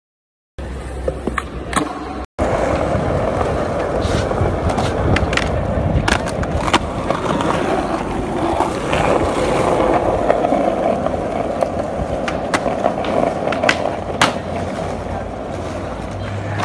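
Skateboard wheels rolling over concrete, a steady rumble, with sharp clacks of the board now and then. It starts after a moment of silence.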